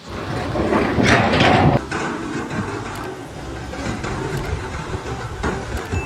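Heavy machinery rumbling and rattling, loudest for about a second near the start, then settling to a steadier rumble with scattered clatter.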